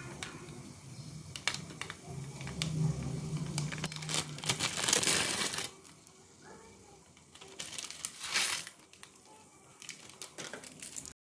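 Plastic instant-noodle packet crinkling as it is handled and opened, with many sharp crackles, loudest about four to five and a half seconds in, and a shorter burst of crinkling about eight seconds in.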